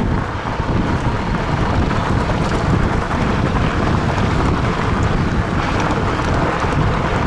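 Steady wind buffeting on the microphone, mixed with trail and tyre noise, as a fat-tire electric bike is ridden fast downhill.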